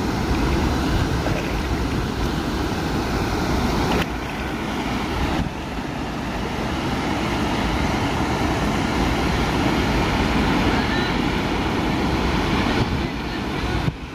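Steady rushing noise, with sudden small drops in level about four and five and a half seconds in.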